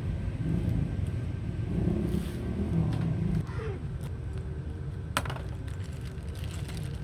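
A vehicle engine running, a steady low rumble that eases a little after about three seconds, with a single sharp click about five seconds in.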